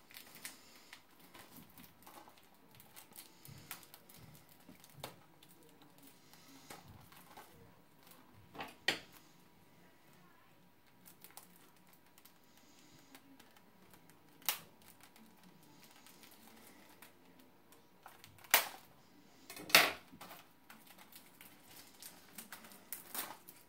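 Handling a plastic Blu-ray case and picking at its shrink wrap: scattered light clicks, taps and plastic crinkles, with a few sharper, louder clicks spread through, two of them close together a little past two-thirds of the way in.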